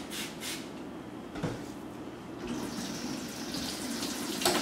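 A couple of last squirts from a trigger spray bottle, then a kitchen faucet running as strawberries are rinsed under it, with a sharp knock near the end.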